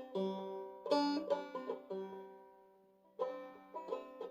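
Five-string banjo played clawhammer style in eCGCD tuning: a short run of plucked notes, then one note left ringing and fading for over a second before the next run begins.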